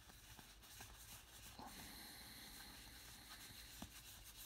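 Near silence: room tone, with a couple of very faint ticks.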